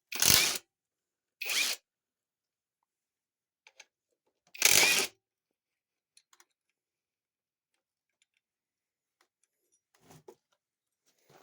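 Hand socket ratchet clicking in three short bursts, at the start, about a second and a half in, and nearly five seconds in, as bolts are backed out of a TH400 transmission. Faint small ticks and taps of handling come between the bursts.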